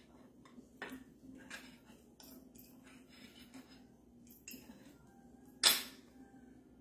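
Knife and fork scraping and clinking against a ceramic plate while cutting a piece of air-fried chicken thigh, with one louder clink near the end as the knife is set down on the plate.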